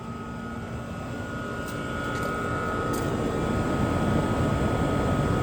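Running central air conditioner condensing units: the condenser fans' steady rush of air with a constant high whine and a low hum, the rush growing louder over the first few seconds.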